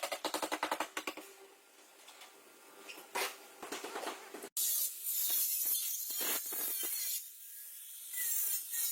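Body-repair tool noise: rapid mechanical tapping at about ten strokes a second stops about a second in; after a sudden cut, a hissing, scraping noise comes in two long stretches.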